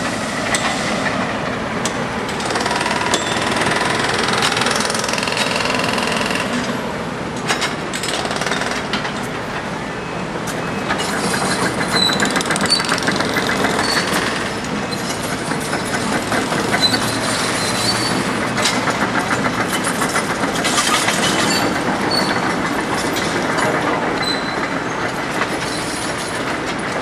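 Hand-held power hammer working on railroad track, a rapid hammering that comes in two long bursts in the second half, over the steady running of work-equipment engines.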